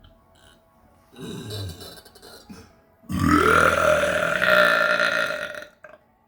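A person burping: a short burp about a second in, then a long, loud, drawn-out burp of about two and a half seconds whose pitch rises at its start.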